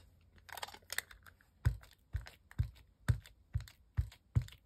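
An ink pad tapped repeatedly onto a rubber stamp mounted on an acrylic block, about two short dull taps a second, starting about a second and a half in after a few light handling clicks.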